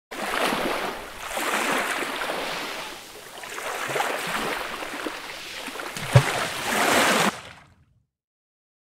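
Water splashing and sloshing in several surging swells, with a short low thud about six seconds in; it stops abruptly a little after seven seconds and fades out.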